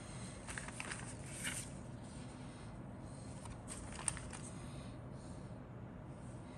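Paper rustling as a model kit's instruction sheet and decal sheet are handled: short crinkles about a second in and again around four seconds, with a sharp tick near four seconds, over a low steady hum.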